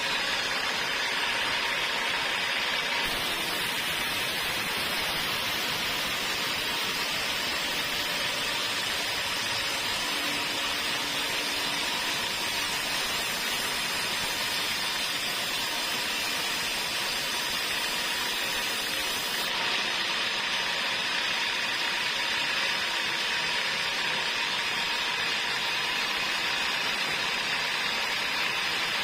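Sawmill saw running: a steady, even noise with a faint held tone, with no break or change.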